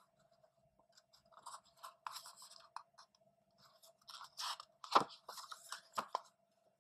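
Paper rustling and sliding as a picture-book page is turned, with two sharp taps about five and six seconds in.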